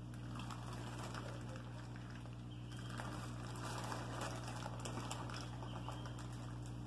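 Plastic fish bag rustling and water spilling from it into an aquarium as a pangasius is released, with a crackle that grows louder about three seconds in, over a steady low hum.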